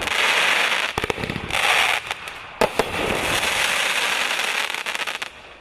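A 500-gram multi-shot fireworks cake firing its last shots: a few sharp bangs, about a second in and again twice in quick succession past the halfway mark, between long spells of dense crackling that fade away near the end.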